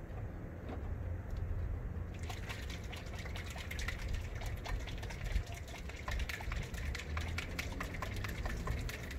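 A bottle of motor oil mixed with RVS treatment gel being shaken vigorously, the liquid sloshing in quick, irregular strokes from about two seconds in.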